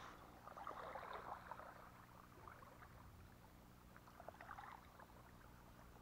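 Near silence: faint shoreline ambience with soft crackling rustles, a little louder about a second in and again just past four seconds.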